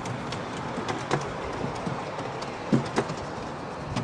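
Miniature steam locomotive and its train running towards the listener, a steady rumble and hiss with sharp metallic clicks from the wheels: one about a second in and a close pair near three seconds.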